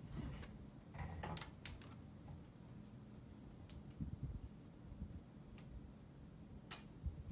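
Faint small clicks and ticks from liquid lipstick being applied with its wand applicator: a cluster about a second in, then single ticks every second or two, over a low steady hum.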